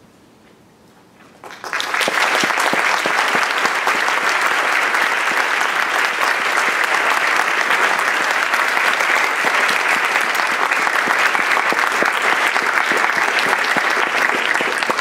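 Audience applauding, breaking out suddenly about a second and a half in after a brief hush and then holding steady and dense.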